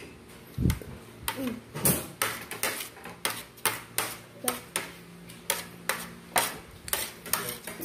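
Light, sharp clicks and taps of cutlery against dishes at a dining table, coming about three a second, with one dull low thump about a second in.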